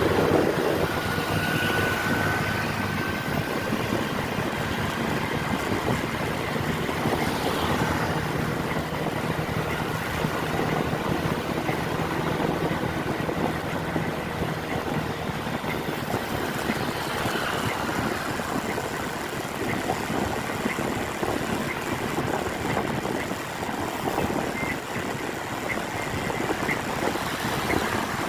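Road traffic noise: a vehicle engine running with steady tyre noise on a wet road and wind on the microphone.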